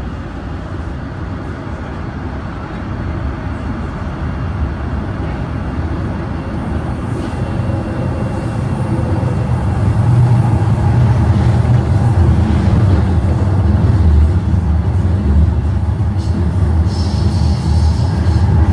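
TTC Line 1 Toronto Rocket subway train running between stations, heard from inside the car: a steady rumble of wheels on rail that grows louder as the train picks up speed. A high wheel squeal comes in near the end.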